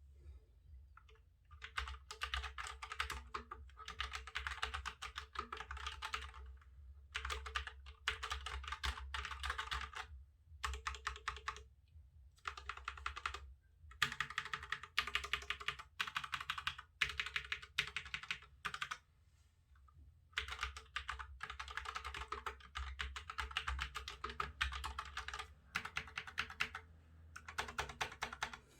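Typing on an IKBC S200 low-profile wireless mechanical keyboard with linear red switches: runs of rapid keystrokes, each two to three seconds long, separated by short pauses.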